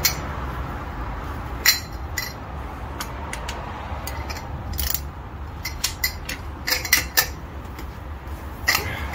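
Breaker bar and steel socket clinking on a car wheel's lug nuts as they are loosened: a scatter of short, sharp metallic clicks and knocks.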